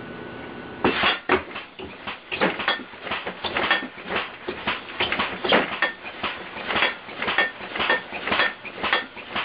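Homemade compressed-air-powered alarm contraption going off: a loud, continuous clatter of sharp metallic clanks, about two or three a second, starting about a second in.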